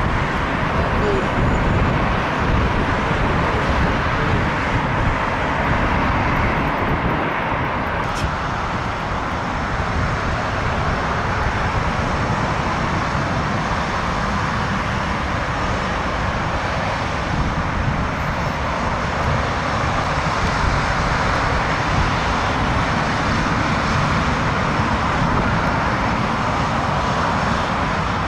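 An Airbus A320's twin jet engines running steadily at taxi power, a continuous engine noise, with a faint high whine coming in about eight seconds in.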